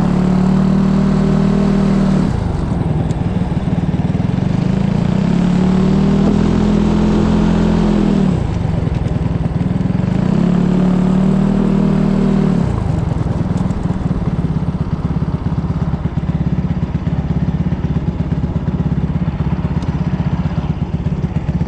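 SA250 racing kart's engine pulling hard under throttle three times, for a few seconds each, dropping off between pulls. From about halfway through it runs slow and steady with an even pulse as the kart coasts off the track.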